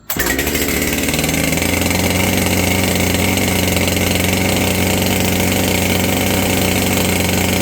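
Echo CS-7310P chainsaw's two-stroke engine catching on a cold start and running steadily. It settles to an even, constant pitch about a second and a half in.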